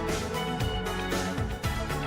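Background music with a steady beat: instruments playing sustained notes over a regular drum pulse.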